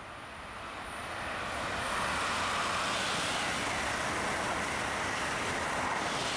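Passenger train passing at speed on the Northeast Corridor: a rushing roar of wheels and air that builds over the first two seconds, then holds steady and loud.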